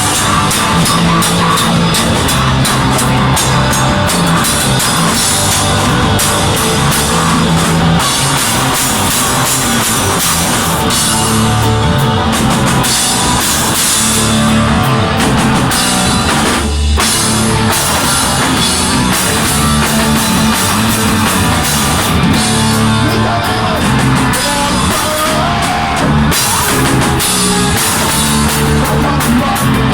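A rock band playing with a drum kit, loud throughout, with a momentary stop about seventeen seconds in.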